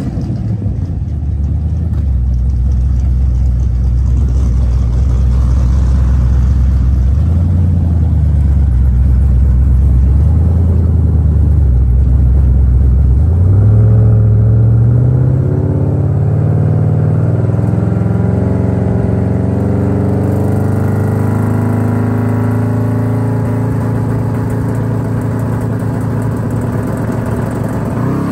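Twin-turbo Chevrolet Silverado's engine running low and steady at first, with small changes in pitch. About halfway through it rises and then holds at a steady, higher speed, the truck waiting on the starting line.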